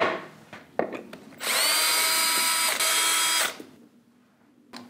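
A couple of wooden knocks, then a cordless drill runs in two runs of about a second each, its motor whine rising as it spins up, driving screws into a pine disc.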